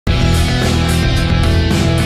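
Rock music with guitar, starting abruptly at the very beginning.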